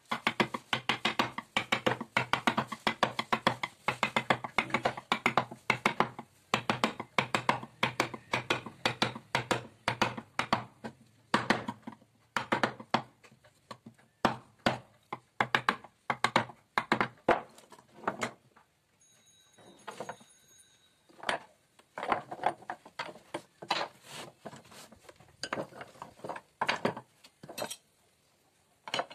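Wooden mallet striking a carving chisel as it cuts into a wooden door panel: quick, steady taps for about six seconds, then slower, spaced strikes with a short pause in the middle, stopping near the end.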